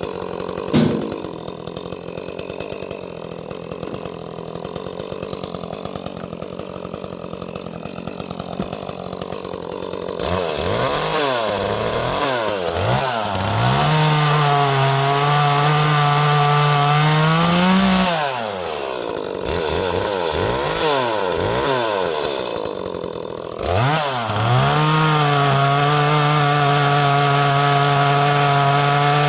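Small Echo 30cc-class two-stroke chainsaw idling for about ten seconds, then revved in quick blips and held at full throttle, plausibly bucking a round. It drops back and is blipped again, then is held at full throttle once more from about 24 seconds in.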